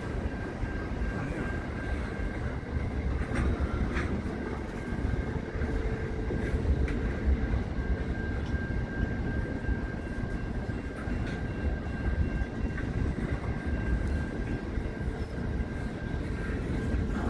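Container freight train's wagons rolling steadily past, a continuous rumble of steel wheels on the rails with a thin steady high squeal running through it and a few sharp clicks.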